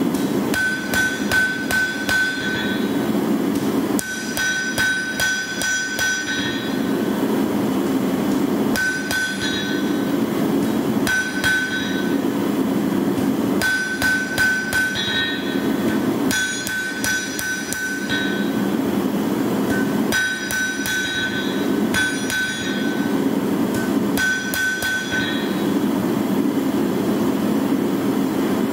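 Hand hammer striking a red-hot wakizashi blade on a steel anvil in short runs of a few light blows with pauses between, each run ringing the anvil: fine straightening adjustments at the editing stage after forging. A steady rushing noise runs underneath.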